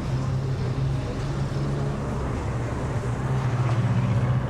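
Steady low drone of a vehicle engine, with a constant hum and a wash of road noise.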